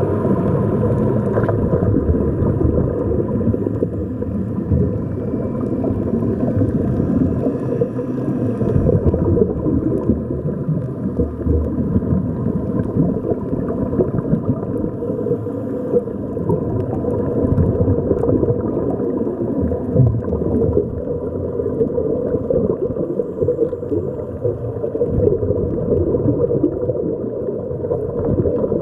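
Underwater ambience picked up by a camera in a waterproof housing: a steady, muffled rumble with gurgling water, and a faint steady hum running through it.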